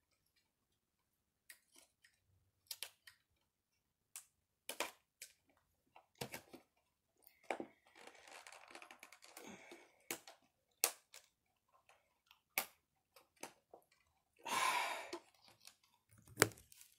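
A sealed hard-plastic package being worked open by hand: scattered clicks and snaps of stiff plastic, a crinkly stretch about eight seconds in, and a louder rustle near the end.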